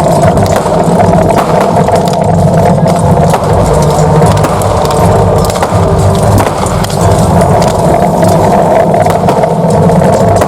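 Loud battle sound effects from an outdoor show's loudspeakers: dense clattering and clashing over a steady low drone, with no narration.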